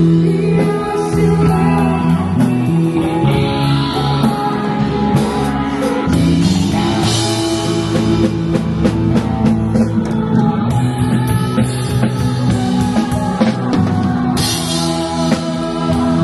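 Live rock band playing: drum kit, guitar and a singer, with the drums hitting steadily and cymbals crashing a couple of times.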